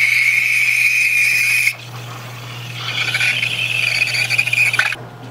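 Espresso machine's steam wand steaming milk: a loud hiss with a high, steady squealing tone. It drops away after about a second and a half, comes back strongly about three seconds in and cuts off shortly before the end, over a low steady hum.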